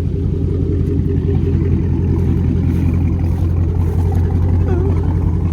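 Dodge Hellcat's supercharged 6.2-litre HEMI V8 idling steadily.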